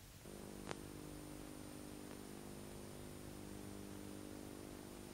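Faint steady electrical hum of several low tones with a thin high whine above it, starting just after the start. A single sharp click comes a little under a second in.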